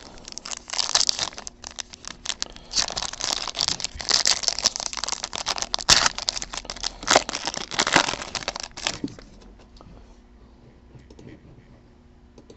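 Foil wrapper of a trading-card pack being torn open and crinkled by hand, a dense run of rustles and sharp crackles that stops about nine seconds in.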